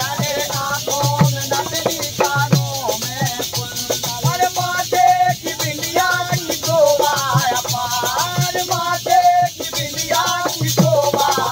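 A man singing a Hindi devotional song, accompanied by a steady shaking, rattling percussion and a regular low beat.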